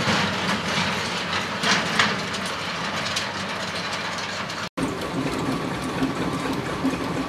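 Narrow-gauge train of wagons running away around a curve, its wheels clicking over the rail joints. The sound cuts out for an instant about four and a half seconds in, and a steady engine hum follows.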